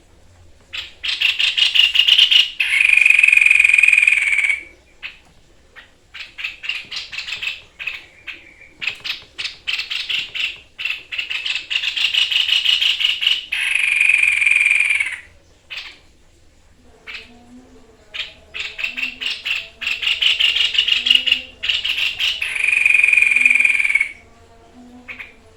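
Tepus dada putih (white-breasted babbler) singing: runs of very rapid rattling trills several seconds long, some ending in a held, higher, buzzier note, with short pauses between runs.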